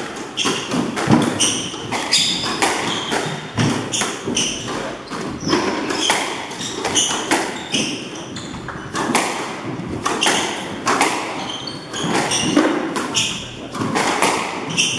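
Squash rally: the ball cracking off rackets and the court walls in an irregular run of sharp hits that echo round the court, with quick footsteps and short high squeaks of shoes on the wooden floor.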